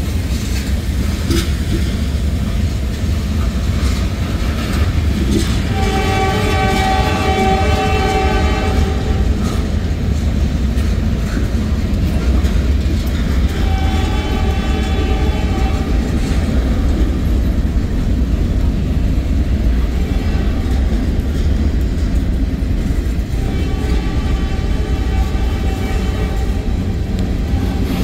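Freight cars of a Norfolk Southern mixed train, tank cars and covered hoppers, rolling past with a steady heavy rumble. The locomotive's air horn sounds three long blasts over it: a few seconds in, about halfway, and near the end.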